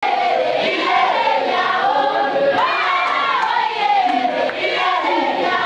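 A group of school students singing together in chorus, a Jerusarema (mbende) dance song, with held notes that rise and fall.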